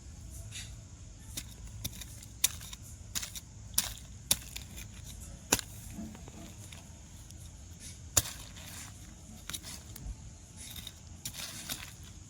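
Irregular sharp taps and clicks over a low steady hum, the loudest about two and a half, four, five and a half and eight seconds in.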